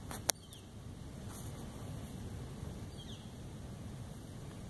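Quiet outdoor background with a few faint, short high chirps falling in pitch, and a single sharp click near the start.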